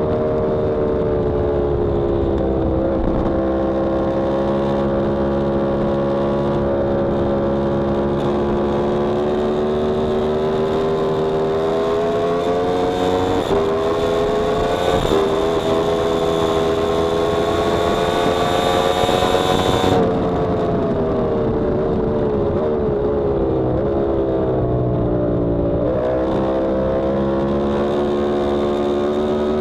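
Yamaha R1M's crossplane inline-four engine running hard on track. The pitch climbs with a couple of quick jumps and is highest about two-thirds of the way in, where it cuts off sharply as the throttle closes. It then falls in small steps as the bike slows through a corner, and near the end it rises again under acceleration.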